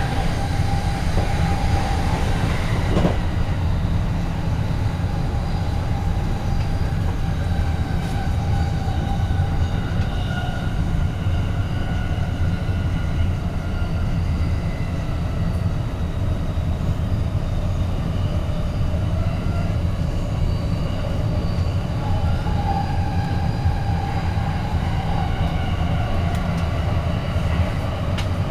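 Train running: a steady low rumble with faint, steady whining tones over it.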